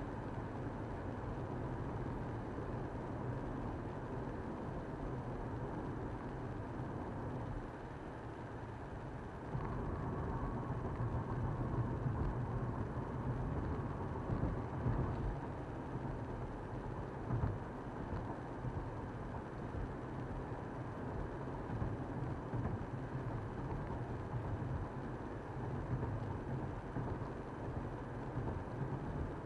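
Steady road and engine noise of a car driving. It grows a little louder about a third of the way in, with a faint whine for a few seconds.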